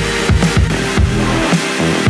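Background electronic music with a steady beat of deep bass-drum hits.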